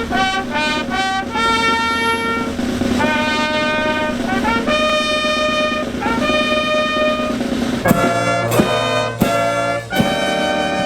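Brass music: a melody of long held notes over a steady low drone, with a few sharp accented strikes in the last three seconds.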